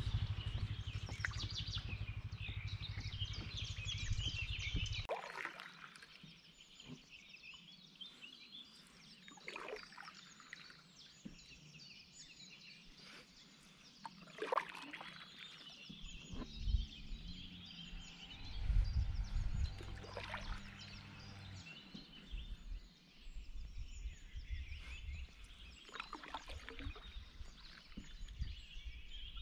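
Small birds singing from the riverbanks, with the splash and drip of a kayak paddle dipping into the water about every five seconds. Low rumbles of wind on the microphone come and go, at the start and again in the second half.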